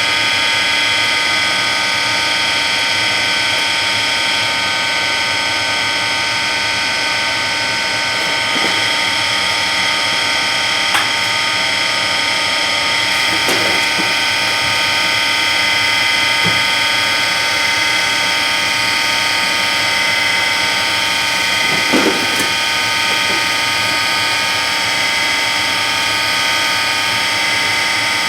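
Metalworking machine tool running steadily, taking a light skim cut across a workpiece, with a steady set of machine tones and a few faint clicks.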